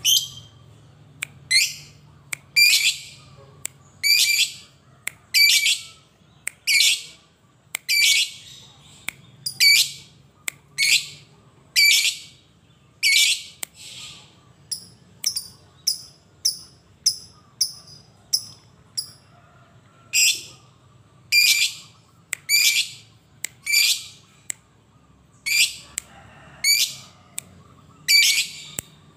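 Lovebird 'ngekek' calling: a long string of loud, shrill, harsh calls at about one a second. In the middle the calls give way for a few seconds to quicker, thinner chirps, about two a second, before the loud calls resume.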